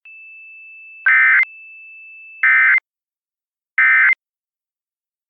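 Emergency Alert System end-of-message data tones: three short, identical warbling digital bursts about a second and a half apart, marking the close of the alert broadcast. A faint steady high tone sounds under the first two bursts and stops after the second.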